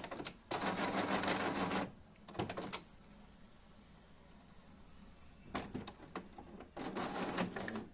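HP Officejet 7610 inkjet printer's print carriage and carriage motor running along the rail, moving freely with no carriage jam. There are two passes, one about half a second in and another about five and a half seconds in, with a few clicks and a quiet pause between them.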